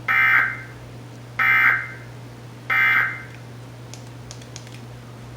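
Emergency Alert System end-of-message (EOM) signal: three short bursts of SAME digital data tones, each under half a second and about 1.3 seconds apart, marking the end of the required monthly test message.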